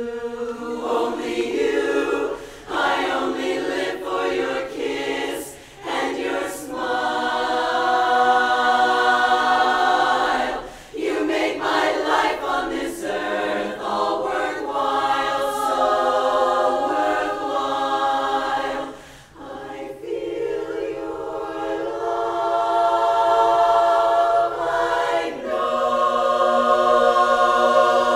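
Women's chorus singing a cappella in full harmony, with sustained chords and phrases separated by brief breaks.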